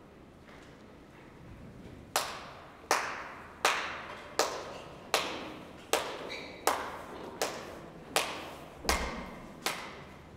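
After a quiet start, a steady series of single sharp hand strikes, claps or slaps, begins about two seconds in, one roughly every three-quarters of a second. Each strike rings on briefly in the large room.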